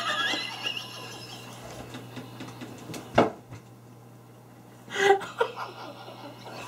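A man laughing hard, mostly breathy and held in, with louder laughing outbursts right at the start, about three seconds in and about five seconds in.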